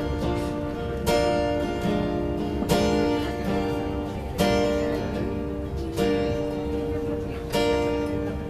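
Acoustic guitar strumming ringing chords, with a fresh stroke about every second and a half, as the instrumental introduction of a song.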